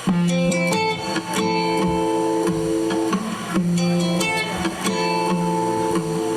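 Guitar chords strummed and left to ring, starting abruptly and re-struck about once a second, as the instrumental intro to a song.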